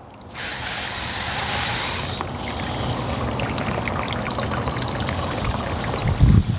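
Water from a garden hose running into a sewer cleanout pipe as the line fills, a steady splashing gurgle with small crackles that starts suddenly just after the start. A short low thump near the end.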